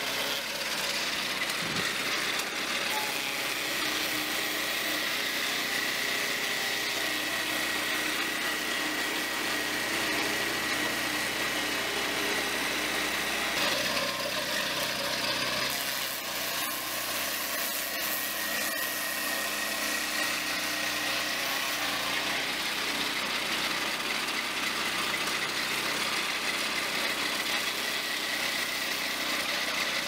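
Small petrol engine of a portable circular-blade log sawmill running steadily as it saws timber, with a steady high whine over the engine noise.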